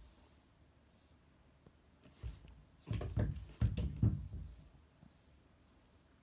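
Soft thumps and bumps of a cat moving and pawing on a wooden floor: a single knock about two seconds in, then a cluster of thumps from about three to four and a half seconds in.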